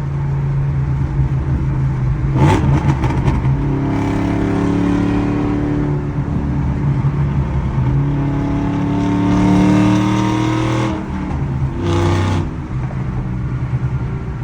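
2010 Ford Mustang GT's 4.6-litre V8 exhaust, revved repeatedly from idle. There is a quick blip about two and a half seconds in, then two longer climbs in revs that drop back, and another quick blip near the end.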